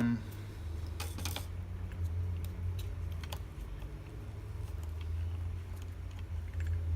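Scattered light clicks and taps of small parts and tools being handled, a few sharp ones in the first few seconds, over a steady low hum.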